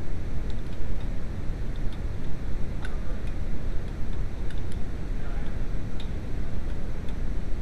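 Scattered light metallic clicks of a wrench on a rear brake caliper bolt, over a steady low rumble of background noise.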